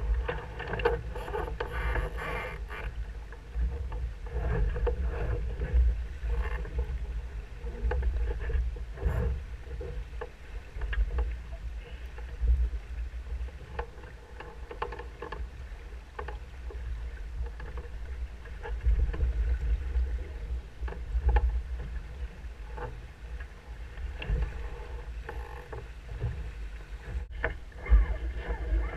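Wind buffeting the microphone of a camera mounted on a Musto Skiff, over the rush of water along the hull as the boat sails through chop. Scattered clicks and knocks come from the rigging and fittings while the gennaker is handled.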